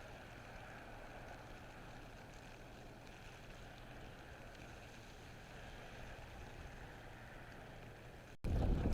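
Faint steady hiss with a low hum underneath.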